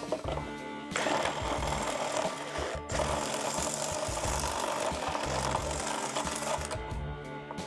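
A small tool grinding steadily against the edge of a mounting hole, enlarging it so a 12-volt outlet will fit. It starts about a second in and stops near the end, over background music.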